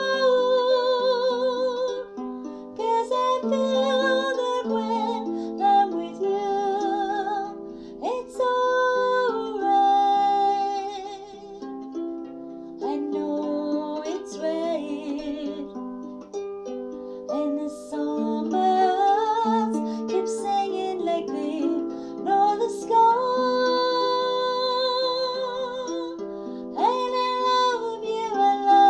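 Solo harp and a woman's singing voice: long held sung notes with vibrato over plucked harp notes.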